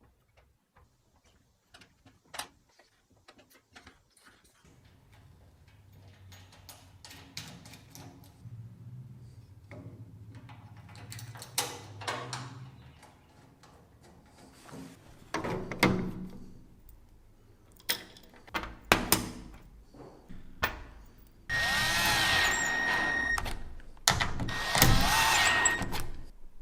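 Scattered knocks and clinks of cart parts and hardware being handled, then a cordless drill/driver running in two long bursts near the end, most likely driving the thread-locked caster bolts.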